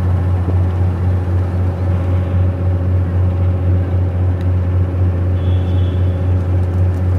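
River cruise boat's engine running with a steady low drone, and the churn of water along the hull.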